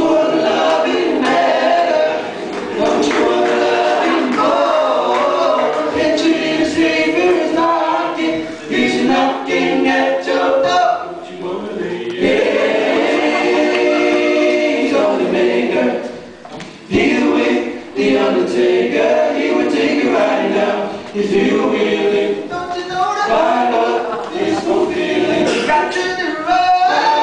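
Group of men singing a cappella in harmony into microphones, several voices together, with a short break about sixteen seconds in.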